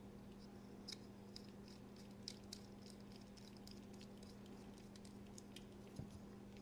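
Faint, irregular small metallic ticks and clicks of a driver turning the body screws into a folding knife's scales, over a steady low hum.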